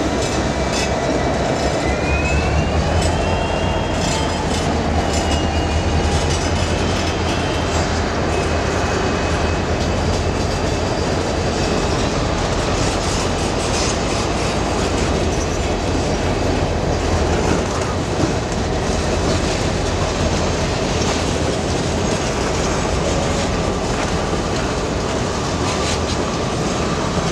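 Freight train cars rolling past, a steady rumble of steel wheels on rail with the clack of wheels over rail joints. For the first several seconds a high wheel squeal rises in pitch and then fades out.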